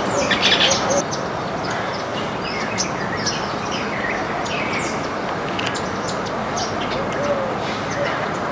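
A flock of small birds chirping, with a dense burst of overlapping chirps in the first second, then scattered chirps, over steady background noise.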